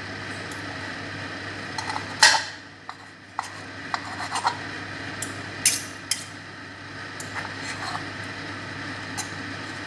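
Knife and fork clicking and scraping against a frying pan as pieces of cooked chicken are cut up in it: irregular metal clicks, the loudest about two seconds in and again near six seconds, over a steady low hum.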